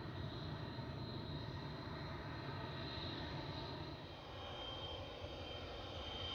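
MiG-21 Bison fighter's R-25 turbojet engine running at taxi power: a steady rush over a low rumble, with a thin high whine that shifts in pitch near the end.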